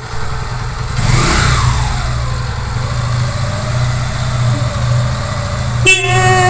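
Motorcycle engine idling with a low pulsing rumble, revved briefly about a second in. Near the end a sudden steady high-pitched tone cuts in over it.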